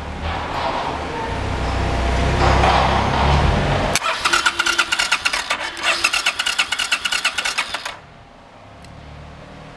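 Suzuki Intruder VS800's V-twin engine: a low steady drone for about four seconds, then a fast, even chatter of pulses that cuts off abruptly about eight seconds in.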